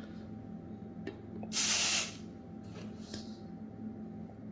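Coarse SPG rub (black pepper, kosher salt, granulated garlic) pouring through a butcher-paper funnel into a plastic shaker bottle: a hissing rush of granules for about half a second near the middle, followed by two shorter trickles.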